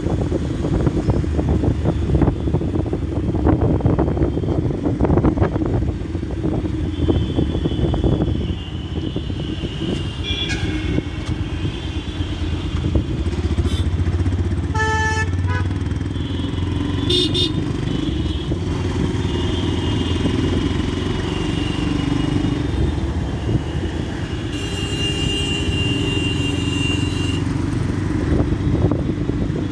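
Yamaha FZ-S motorcycle riding through city traffic, its engine running steadily with wind noise on the microphone. Vehicle horns honk several times along the way.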